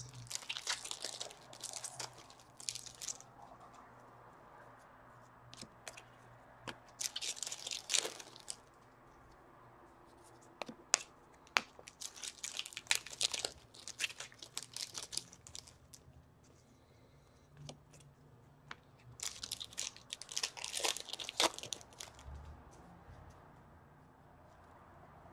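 Hockey card pack wrappers being torn open and crinkled, with cards handled and flicked through: four bursts of crinkling and tearing with a few sharp clicks, separated by quieter stretches.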